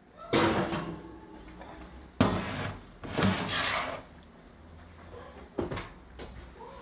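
Kitchen handling knocks and scrapes: a large stainless-steel pot with its lid is set down and shifted on a glass-ceramic cooktop, and an oven door is shut, four separate knocks in all.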